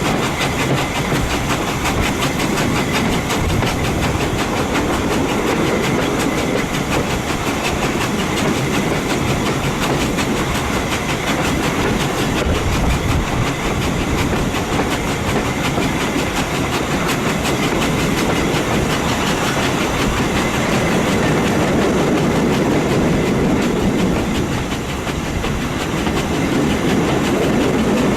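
Heritage train running slowly along the line, heard from on board: a steady rumble and clatter of carriage wheels on the track.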